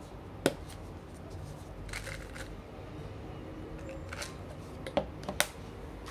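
Plastic flip-top cap of a supplement bottle being handled: a sharp snap about half a second in, light rustling and ticking as the bottle is turned, then the lid snapping shut with two or three quick clicks near the end.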